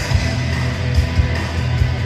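Instrumental rock music with a strummed guitar, steady bass and a regular drum beat; no singing.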